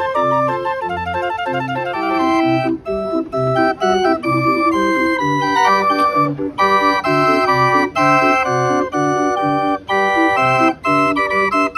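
Hand-cranked barrel organ playing a lively tune: pipe melody notes over an even oom-pah bass, about two bass beats a second.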